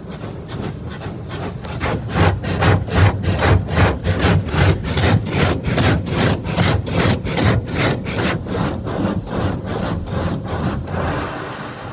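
Spray jets of an Autec Evolution touch-free car wash beating on the car's roof and glass, heard from inside the cabin. The spray comes as a fast, even pulsing of about three beats a second as the nozzles sweep back and forth, strong enough to shake the car. It builds about two seconds in and eases off near the end.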